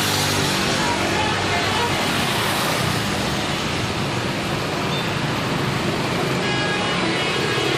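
Steady roadside traffic noise from buses running past, a rushing sound over a low engine hum. Faint notes of a multi-tone telolet bus horn come in briefly near the end.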